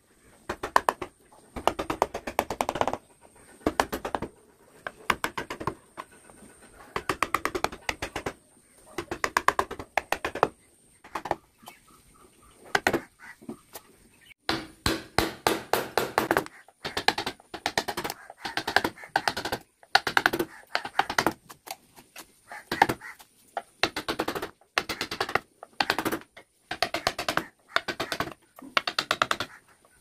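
Carving gouge and flat chisel pushed by hand into a wooden board, making repeated short scraping cuts. Each stroke lasts under a second, with brief gaps between them.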